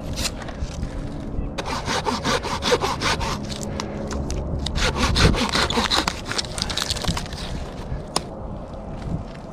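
Hand saw cutting through wood in quick, rhythmic back-and-forth strokes, starting about a second and a half in and stopping shortly before the end.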